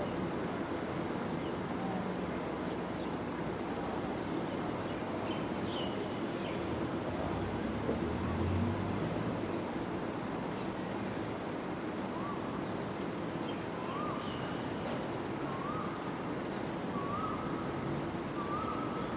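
A steady rushing noise of gusty wind. From about twelve seconds in, a bird calls a short rising note, repeated several times at intervals of about a second and a half, with a few faint higher chirps earlier.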